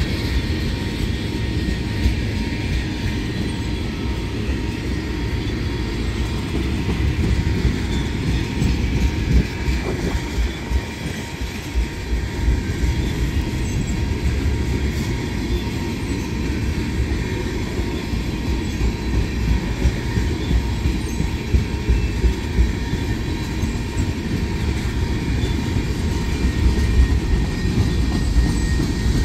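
Freight train's tank cars rolling past on steel wheels: a steady rumble and rattle of wheels on rail, with scattered clicks and clacks.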